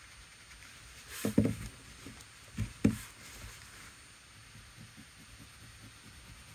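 Two short clusters of sharp clacks about a second apart as a water brush pen is set down on the desk and a wax watercolour crayon is picked up, then faint, irregular scratching of the wax crayon on paper.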